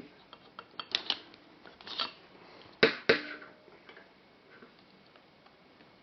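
Small clicks and knocks of an XLR plug and wire being handled and held in place. There are several light taps in the first two seconds and a sharper knock about three seconds in, then it goes quiet.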